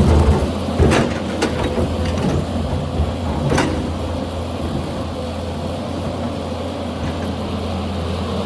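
Excavator's diesel engine running steadily while the machine works, with a few sharp knocks and clatters in the first four seconds as big rocks are shifted and thrown down the slope.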